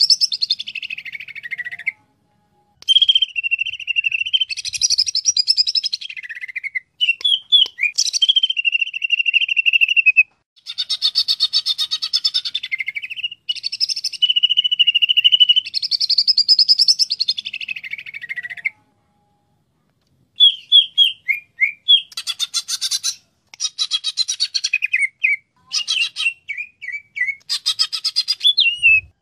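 A cucak ijo (green leafbird) singing: long phrases of clear whistled notes and fast trills, broken by short pauses. In the last third the song turns into quick runs of short, sharp chattering notes.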